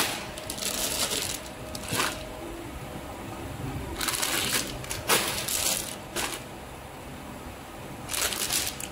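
Plastic snack pouches crinkling in several short bursts as they are handled, set on and taken off a bench scale.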